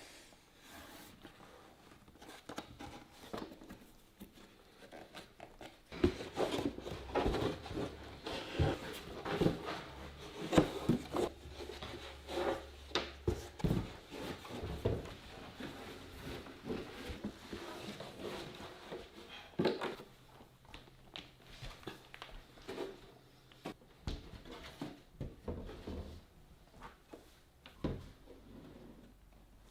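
Irregular knocks and clatter of hand work on wooden parts in a small workshop. Sparse at first, the knocks come thick and fast from about six seconds in, then thin out again after about twenty seconds.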